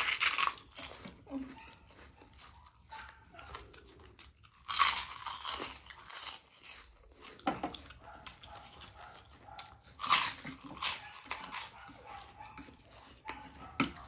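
Close-miked eating: crunchy bites and chewing, coming in clusters every few seconds with quieter gaps between.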